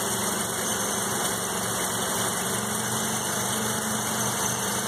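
1984 Mazda RX-7's 12A two-rotor rotary engine idling steadily with a smooth purr. It is warming up from a cold start and running with the choke off.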